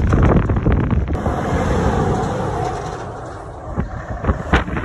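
Wind buffeting the phone's microphone over the rumble of a loaded car-transporter lorry passing close by, the rumble fading over the first few seconds, with a few sharp gusts near the end.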